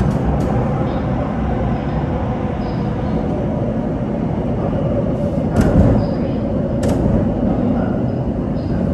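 Underground metro train running through a tunnel: a steady rumble of wheels on rails, with two sharp clicks a little past the middle.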